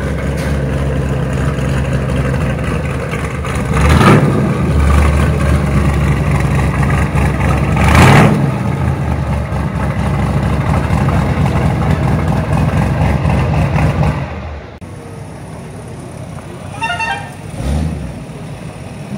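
Chevrolet C3 Corvette Stingray's V8 idling, revved sharply twice, about four and eight seconds in. The engine sound stops abruptly about fourteen seconds in, leaving a quieter background with a brief wavering tone near the end.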